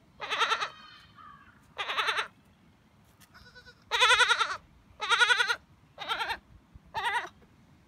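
A newborn kid goat bleating: about six short, wavering bleats, roughly one a second.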